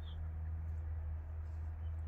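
A steady low hum, with one short, high, falling bird chirp right at the start.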